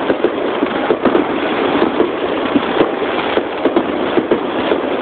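Aerial fireworks shells bursting at close range: a dense, continuous barrage of sharp bangs, several a second, over a steady crackling wash.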